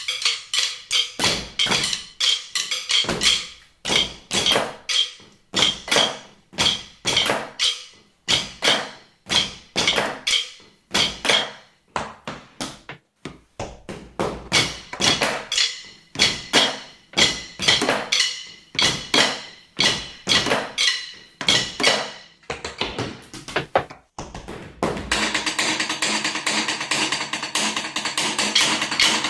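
Wooden drumsticks clicked and tapped in an ensemble rhythm, sharp ringing strokes a few to the second with short pauses. About 25 seconds in, the single strokes give way to a fast, continuous rattle.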